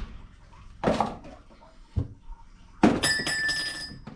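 Metal parts handled at copper pipework: a rustle about a second in and a short knock at two seconds, then a sharp metallic clink that rings for about a second.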